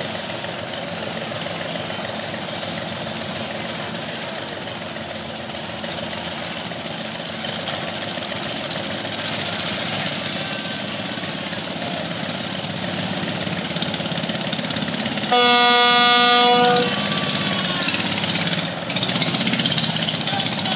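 A river passenger launch's engine runs steadily amid harbour noise. About 15 seconds in, a loud launch horn sounds once for about a second and a half.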